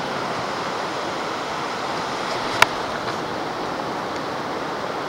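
Shallow river water rushing steadily over rocks, heard close to the surface, with a single sharp click about two and a half seconds in.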